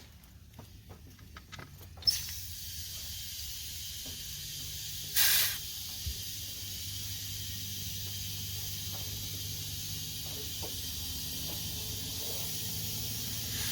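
Compressed air hissing steadily into a tractor tire through the air chuck as the bead is being reseated, starting suddenly about two seconds in, with a brief louder rush of air about five seconds in.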